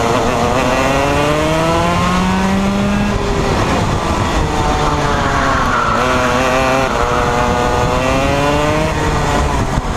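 Rotax Max two-stroke kart engine heard from on board, revving up through the gears: the pitch climbs for about three seconds, drops off briefly, and climbs again twice as the kart accelerates out of corners and down the straights.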